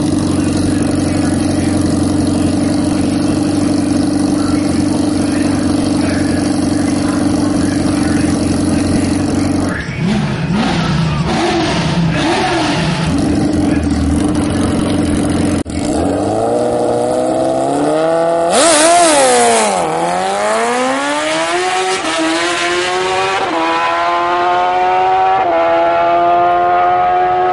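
Suzuki GSX-R1000 all-motor (naturally aspirated) inline-four drag bike engine, running steadily at first, then revving up and down in uneven blips. It launches with a loud burst, then its pitch climbs in steps with several upshifts as it pulls away.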